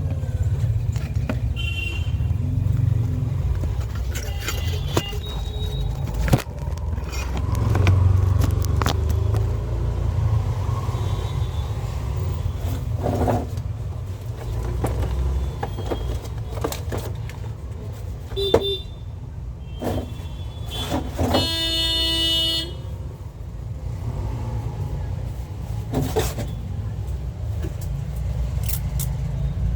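Steady low rumble of road traffic, with scattered light clicks and taps. A horn sounds once, held for about a second and a half, a little after two-thirds of the way through.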